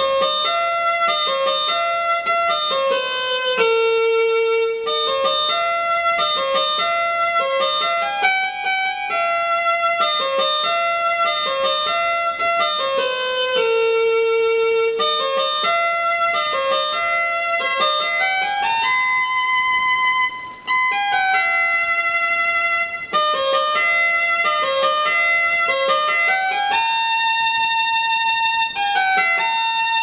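Instrumental background music: a melody of quick stepping notes that repeats, with a brief dip about two-thirds of the way through.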